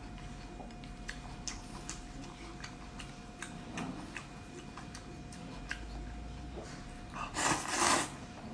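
A person eating noodles: small wet chewing clicks and lip smacks, then one loud slurp of noodles about seven seconds in.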